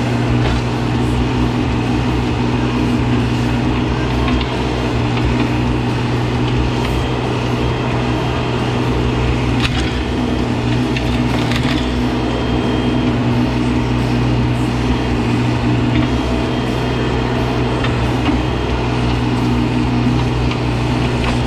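Mahindra eMax 20S sub-compact tractor's diesel engine running steadily at a constant speed.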